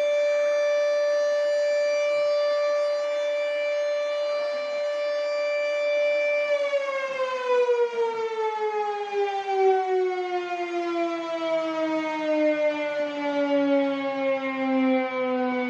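Air raid siren sounding a steady high wail, then, about six and a half seconds in, slowly winding down in pitch.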